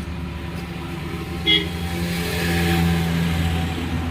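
A steady low mechanical hum, with one short, sharp toot about one and a half seconds in and a swell of noise just after.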